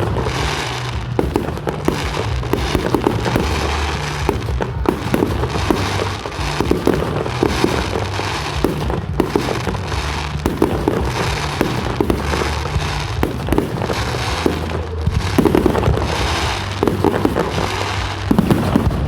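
Fireworks display: a continuous, dense barrage of crackling pops and bangs.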